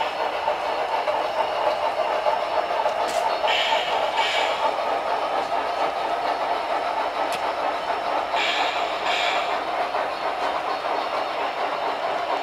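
HO scale model train running on the layout's track: a steady running noise, with a pair of short rattling bursts about every five seconds.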